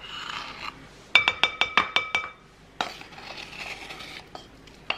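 A metal measuring spoon scraping powder in a small tin, then tapped in a quick run of about eight times against the tin's rim to level it, each tap ringing with the same clear metallic tone. More scraping follows.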